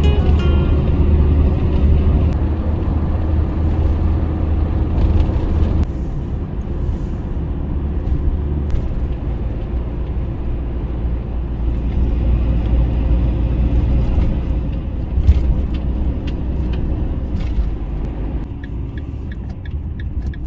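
Road vehicle on the move: a loud, steady low rumble of engine and road noise, easing somewhat about six seconds in.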